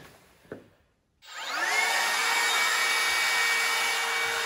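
A small electric motor appliance switched on about a second in: its whine rises in pitch as it spins up, then runs at a steady, loud, high whine.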